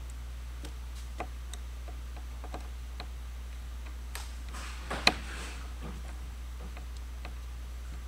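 Small scattered ticks and clicks of a Phillips screwdriver working the base screws of a Panasonic Toughbook CF-30 laptop, with one sharper click about five seconds in. A steady low hum runs underneath.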